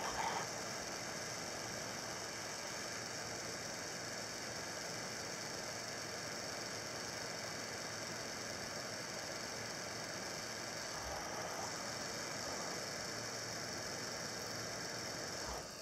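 Heat gun running steadily, a constant blowing hiss of hot air and fan, heating a CPU pin pad to melt the solder for a replacement pin.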